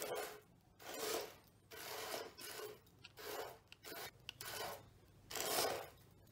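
Small DC gear motors of a hobby RC car whirring in about six short bursts of half a second to a second each, with brief pauses between them as it is driven in stops and starts.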